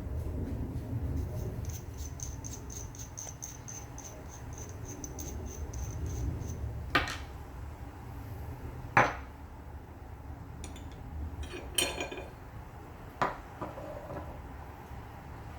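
Glock 19 Gen 5 pistol being handled and reassembled with a new threaded barrel: a run of faint light ticks, then several sharp metallic clicks and clacks of steel parts, the loudest about nine seconds in.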